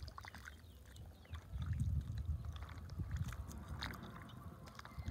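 A spoon stirring thick seafood broth in a large clay pot, with scattered small wet clicks and taps. Under it is a low rumble that swells about a second and a half in.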